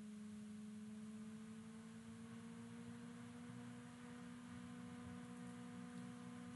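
Faint steady hum: one low tone with an overtone above it, slowly rising a little in pitch, over a soft hiss.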